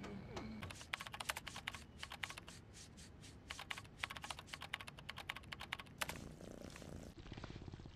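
Typing on a laptop keyboard: rapid, uneven key clicks that stop about six seconds in.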